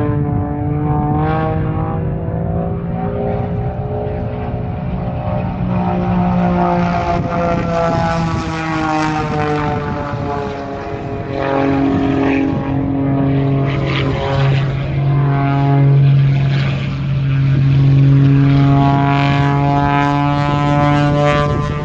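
Propeller aircraft engines droning steadily as planes fly by at an air show, the pitch slowly bending up and down.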